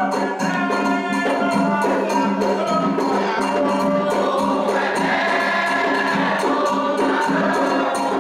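Candomblé toque for Logun Edé: a group of voices singing a chant together over a steady, fast beat of drums and percussion.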